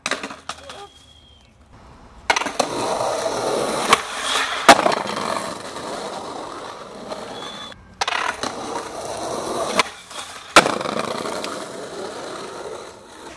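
Skateboard wheels rolling over pavement, with several sharp clacks of the board hitting the ground as the skater pops and lands tricks.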